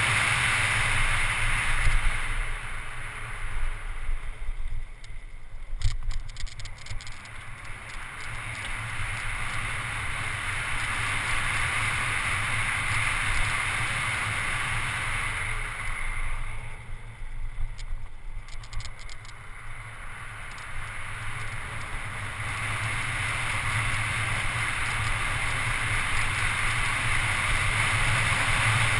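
Wind rushing over a GoPro camera, with tyre rumble, as a mountain bike descends a paved road at speed. The rush fades twice, with a few short clicks in the quieter stretches, then builds steadily again towards the end.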